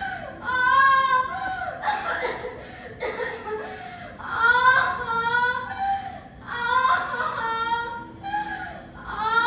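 A woman wailing and crying out in pain: long, high, drawn-out cries that come again about every two seconds, the cries of a woman in labour.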